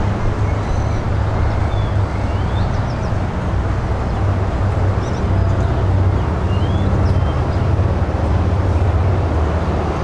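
A steady low motor rumble, like a distant engine, with a few short, high rising bird chirps above it.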